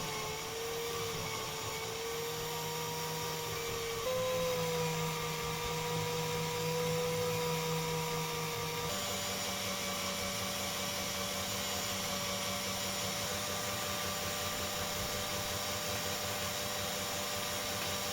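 Small electric motor, such as a rotary tool, running steadily with a whine whose pitch steps up about four seconds in and again about nine seconds in.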